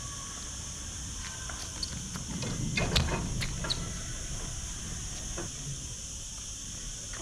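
Sneakers on an outdoor hard court during a jump: a quick run of footfalls and scuffs, a landing thump about three seconds in, and a couple of short shoe squeaks just after.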